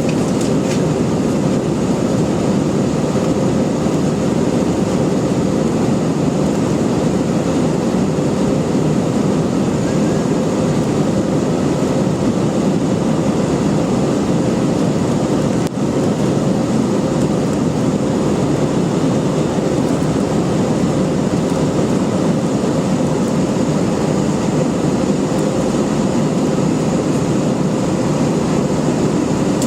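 Airliner cabin noise during the climb after takeoff: a steady rush of air and jet engine noise with a faint steady hum, dipping briefly about halfway through.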